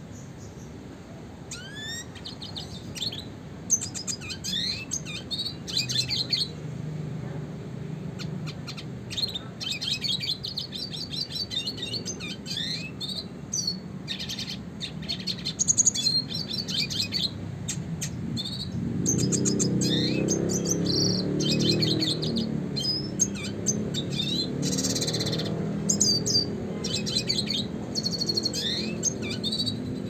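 Male red siskin (Spinus cucullatus) singing a fast twittering song of chirps, rapid trills and rising whistled notes, broken by short pauses. A low rumble in the background grows louder about two-thirds of the way through.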